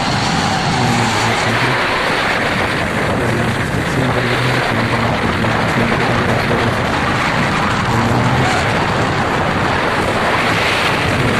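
Motorcycle engine running steadily at road speed, under heavy wind rushing over a helmet-mounted microphone.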